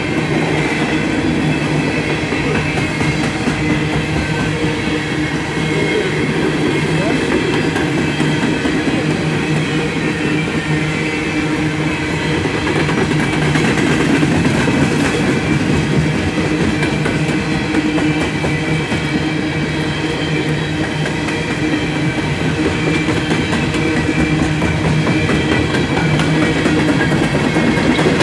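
Freight train of CSX coal cars rolling past: a steady, loud rumble and clatter of steel wheels over the rail, with a few steady ringing tones over it.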